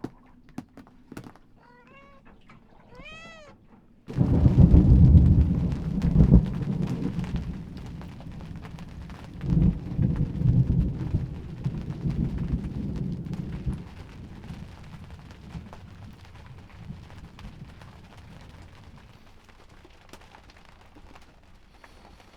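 A cat meows twice. About four seconds in, a sudden loud clap of thunder breaks and rolls on, surges again about ten seconds in, and dies away over the next few seconds.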